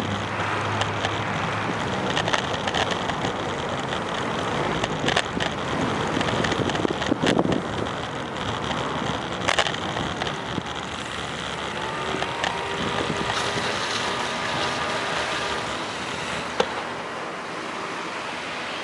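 Road traffic noise from a queue of cars in the street, heard while riding a bicycle along the sidewalk, with a few sharp knocks and rattles.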